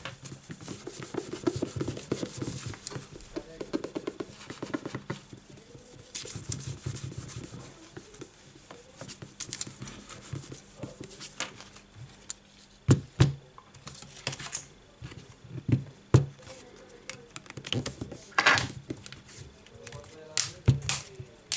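Paper tissue rubbing over a smartphone's glass screen, then several sharp knocks and clicks as the phone is picked up and handled.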